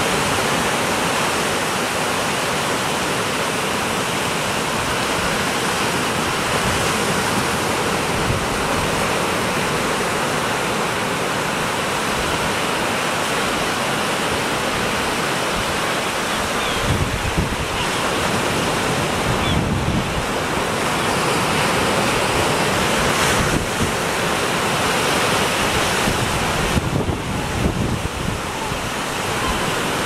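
Small waves breaking and washing up a shallow beach: a steady wash of surf. In the second half, wind gusts rumble on the microphone now and then.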